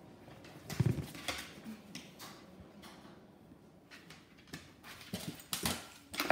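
A terrier's short, scattered noises as it goes after a wasp at a glass door: quick sniffs, snaps and scuffles, with a louder knock about a second in and a cluster of sounds near the end.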